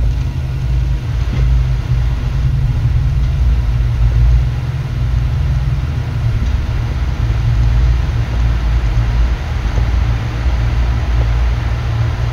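Car driving on a rain-wet highway, heard from inside the cabin: a steady low rumble of engine and road noise with a hiss of tyres on the wet pavement.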